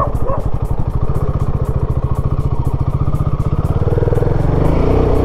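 Royal Enfield Himalayan 450's single-cylinder engine running steadily while riding, its even firing pulses dominant, rising slightly in pitch about four seconds in as the bike picks up speed.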